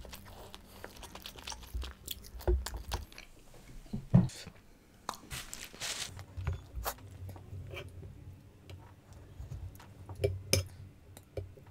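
Close-miked eating sounds: chewing and biting on chicken biryani off the bone, with scattered sharp mouth clicks. A papery rustle comes about halfway through, and a few knocks of metal tongs against a pot come near the end.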